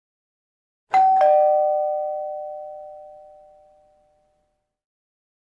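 Two-tone ding-dong chime: a higher note and then a lower one a quarter of a second later, both ringing and fading away over about three seconds.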